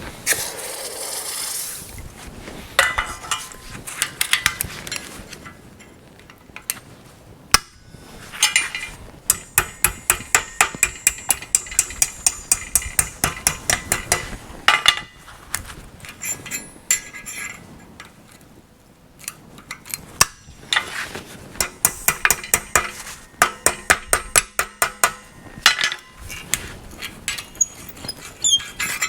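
Hand hammer striking steel on an anvil, shaping forged chain links: runs of quick, ringing blows about three or four a second, with pauses between the runs.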